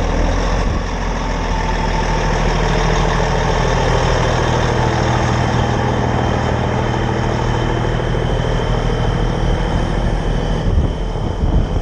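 Heavy tow trucks' diesel engines idling steadily, the nearest a heavy wrecker.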